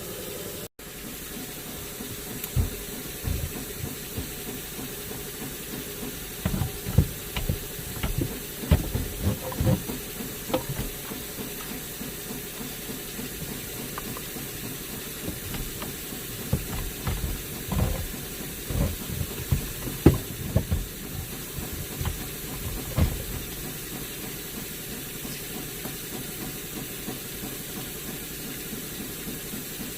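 Irregular knocks and clunks of a car's steering column being lifted up under the dashboard, set onto its mounting studs and its nuts started, over a steady hiss. The knocking dies away a few seconds before the end.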